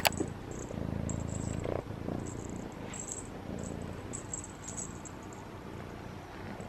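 A sharp click, then a low steady rumble close to the microphone, stronger for about a second near the start.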